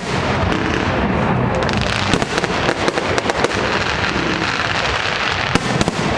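Fireworks display: a dense, continuous barrage of crackling and popping bursts, with many sharp cracks close together.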